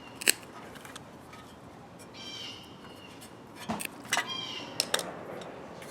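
Clicks and knocks of hands working on a lawn mower's recoil starter while the new pull rope is cut to length, with a sharp click about a third of a second in and two short high-pitched squeaks later on.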